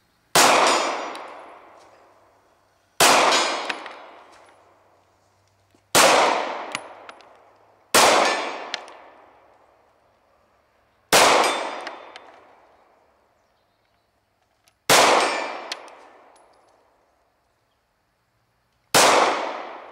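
Glock 26 9mm pistol fired seven times, slowly and a couple of seconds apart, each shot echoing and fading over about two seconds. Several shots are followed by a faint clank of the steel target being hit.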